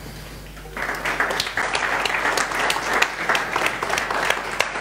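Audience applauding at the end of a talk, many hands clapping together; the clapping starts just under a second in and keeps going.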